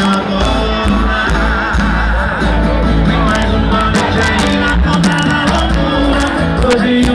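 Live sertanejo band playing loud through a concert PA, recorded from the audience. Drums and bass keep a steady beat under guitars, keyboard and accordion, with a singing voice.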